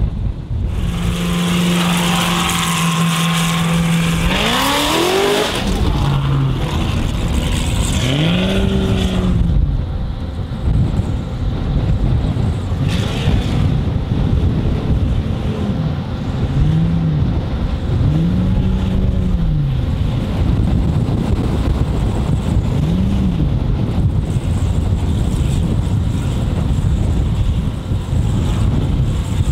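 Formula Offroad competition car's engine held at steady revs for a few seconds, then revved up and back down again and again, over a constant low rushing noise.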